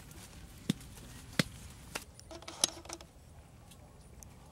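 A small wood fire crackling under a coconut, with four sharp pops over about two seconds, then quieter.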